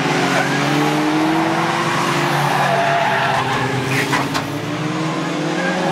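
A pack of BriSCA F2 stock cars racing on an oval, several engines running together at shifting pitch as they pass close by, with tyres skidding. Two short sharp knocks about four seconds in.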